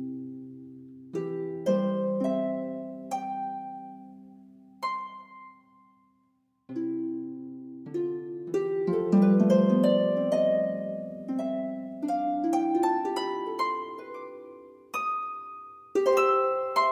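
Slow, relaxing instrumental music of plucked-string notes that ring and fade. It dies away to a brief silence about six seconds in, then comes back with a quicker run of notes.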